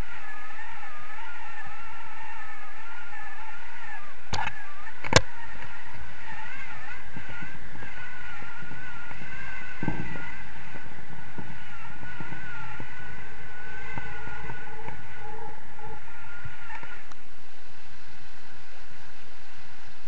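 Wind rushing over the camera microphone in flight under a paraglider, steady throughout, with a thin wavering whistle that fades out near the end. A sharp click about five seconds in.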